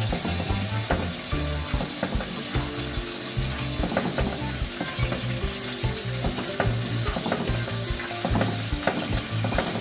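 Rice and peas crackling and sizzling in a hot pot on low heat while a spoon turns the grains over, with frequent small clicks from the spoon.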